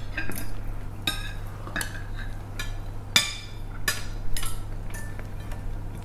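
Metal cutlery clinking and scraping on ceramic dinner plates as people eat: a string of short clinks, the sharpest about three seconds in. A steady low hum runs underneath.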